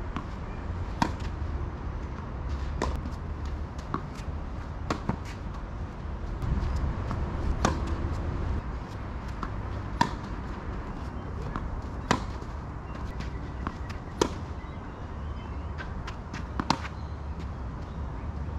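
Tennis racquets hitting the ball back and forth in a baseline rally: a sharp pop about every two seconds, with fainter ball bounces between, over a low steady rumble.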